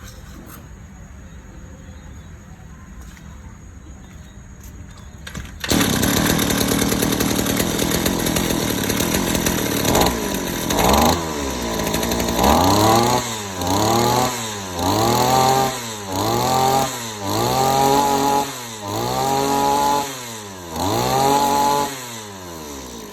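Small two-stroke brush-cutter engine starts about six seconds in and runs, then is revved up and let back down over and over, each rev a rising whine. The sound falls away near the end.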